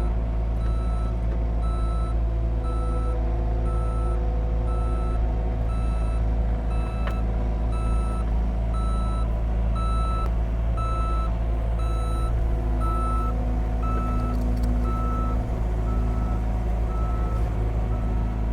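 Caterpillar 259D3 compact track loader's diesel engine running steadily under load, with its back-up alarm beeping steadily about twice a second.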